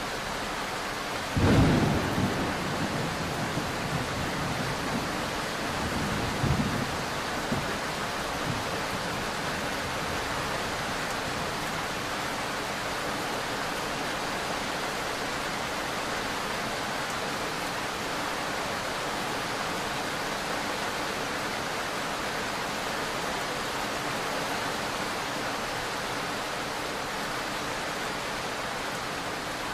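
Steady rain hiss with a clap of thunder about a second and a half in that rumbles on for several seconds, with a second, smaller burst of rumble around six seconds in before it dies away.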